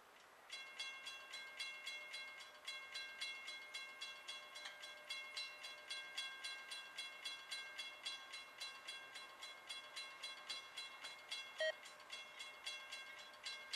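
Railroad grade-crossing bell starting up about half a second in and ringing in rapid, even strikes as the crossing signals activate and the gates lower for an approaching train. A brief louder blip sounds once near the end.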